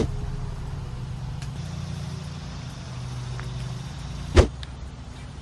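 A steady low, engine-like hum, with a single sharp thump a little over four seconds in.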